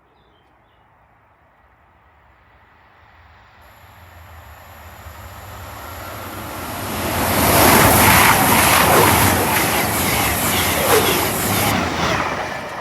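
Diesel passenger train on the Plymouth to Leeds service approaching and passing through the station at speed. A high hiss from the rails comes in a few seconds before it arrives, then the sound grows into a loud rush of engine and wheels with rapid clicks over the rail joints.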